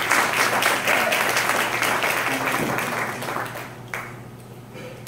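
Audience applauding in a hall, the clapping dying away about three and a half seconds in. A single knock follows shortly after.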